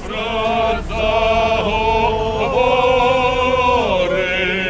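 A crowd of demonstrators singing together without accompaniment, several voices holding long, wavering notes that step to a new pitch every second or so.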